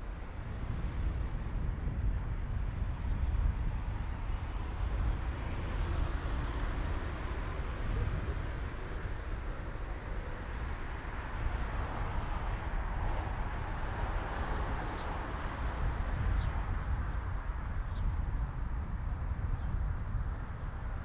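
Road traffic heard from a moving bicycle on an asphalt bike path. A steady low rumble lies under the hiss of cars passing on the road alongside, loudest around the middle.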